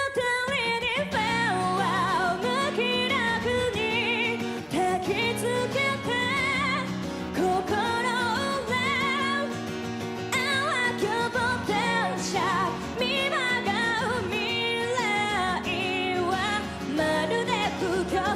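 A woman singing a ballad melody with vibrato, accompanied by acoustic guitar.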